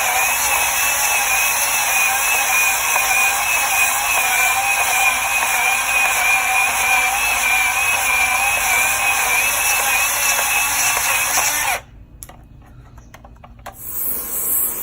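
A handheld power tool running steadily under load with a wavering whine, cutting 3/8-inch steel rod stock to length for rivets. It cuts off abruptly about twelve seconds in.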